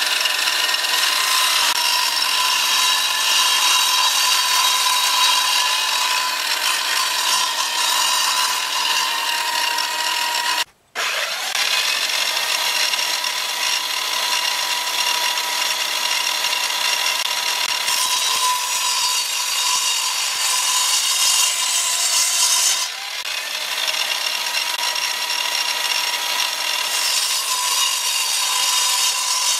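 Power Kraft 10-inch radial arm saw running at full speed with a steady high whine, its blade cutting through wood as boards are fed past it. The sound drops out for an instant about eleven seconds in.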